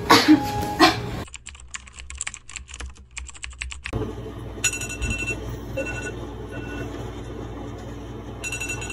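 A run of rapid, irregular clicks, then a smartphone alarm beeping several times in short two-tone beeps over a low hum.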